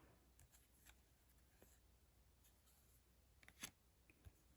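Near silence with faint rubbing and a few soft ticks of trading cards being handled and slid through a pack, one tick a little louder about three and a half seconds in.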